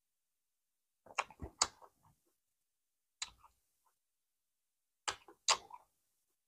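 Faint wet lip smacks and mouth clicks of someone chewing soft steamed rice rolls (bánh cuốn): three close together about a second in, one a little after three seconds, and two more about five seconds in, with silence between.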